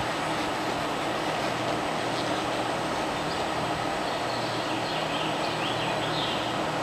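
Steady, even background noise of a large indoor arena, with a few faint high wavering sounds in the second half.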